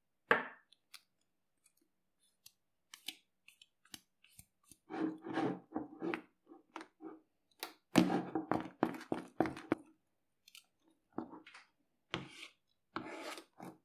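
Shaving foam mixed with glue and soap being stirred in a plastic tub, giving wet mixing noises in irregular bursts, the loudest about eight seconds in.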